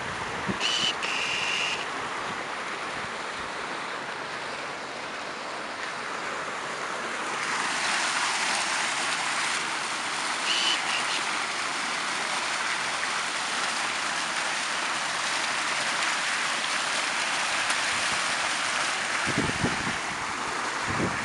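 Fountain water splashing into its basin, a steady rushing hiss that gets much louder about seven seconds in. A few brief high chirps sound near the start and once about ten seconds in, and low wind rumble hits the microphone near the end.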